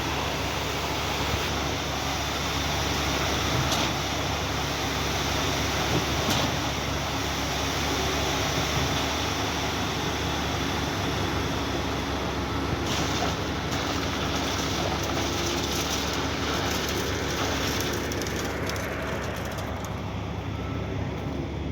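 Heavy diesel machinery running steadily: a truck-mounted concrete pump's engine and pumping during a slab pour, with a few faint knocks. The high hiss eases off near the end.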